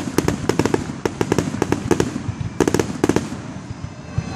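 Fireworks finale: rapid volleys of sharp bangs from bursting shells, coming in dense bunches over a continuous rumble, thinning out near the end.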